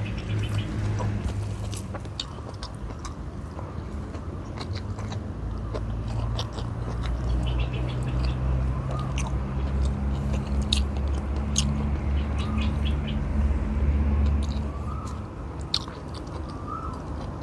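Close-up chewing and lip-smacking of a man eating rice and stew by hand, many small wet clicks, over a low steady drone. A few faint bird chirps come in during the second half.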